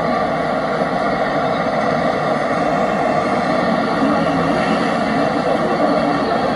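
Steady, loud city street noise of passing road traffic.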